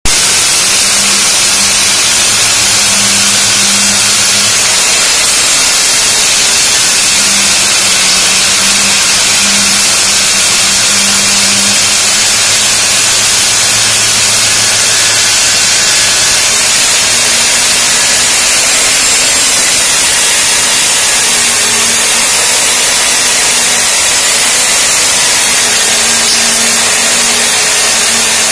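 Stand-mounted diamond core drill running steadily as its core bit grinds a large hole through a masonry wall. The motor's low hum shifts slightly in pitch about two-thirds of the way through.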